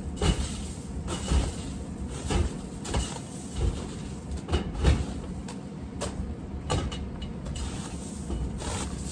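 A stuck door being yanked and worked open: a string of irregular knocks and rattles.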